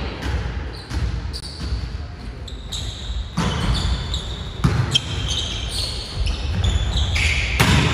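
Volleyball rally in an echoing sports hall: the ball struck several times with sharp hits, shoes squeaking on the wooden gym floor, and players calling out.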